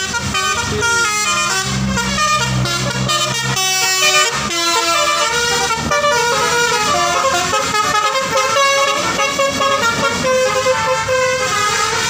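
Bus basuri multi-tone air horn playing a fast, continuous 'telolet' melody of quickly changing notes. The bus engine runs underneath in the first few seconds.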